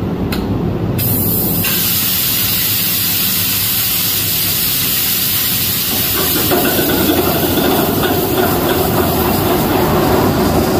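Ship's diesel generator being air-started: a loud, steady hiss of compressed starting air, with the engine's running sound filling in fuller about six seconds in as it picks up.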